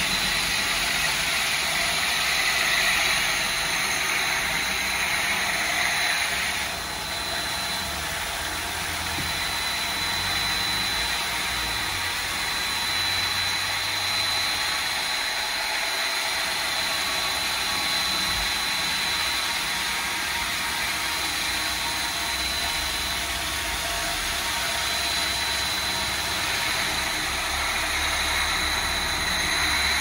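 Overhead-arm stone polishing machine running, its spinning pad grinding wet along the top edge of a Takine granite coping slab: a steady grinding hiss with a thin high whine.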